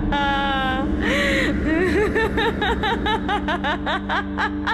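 A woman laughing eerily, a long run of quick high-pitched 'ha's, over a low steady drone.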